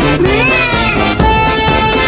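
Upbeat instrumental background music with a gliding melody line.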